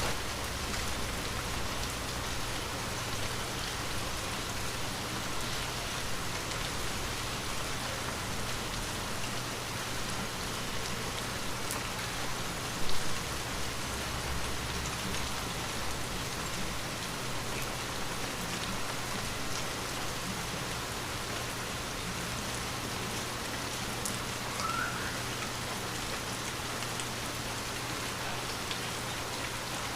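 Light rain falling steadily and pattering on surfaces, with one brief louder knock about midway.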